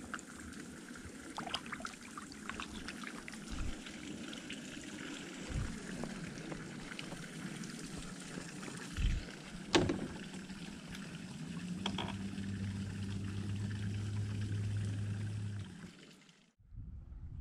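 Water trickling and lapping around a kayak, with scattered small clicks and a couple of sharper knocks about two-thirds of the way through. A steady low hum comes in during the second half and cuts off shortly before the end.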